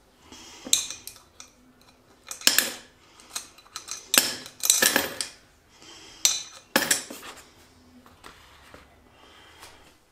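Coins dropped one at a time through the slot of a bear-shaped coin bank: about six separate metallic clinks, some with a short ring, spread over several seconds.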